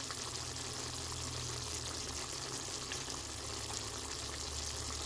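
Food frying in a pan: a steady sizzle with small scattered crackles over a low hum.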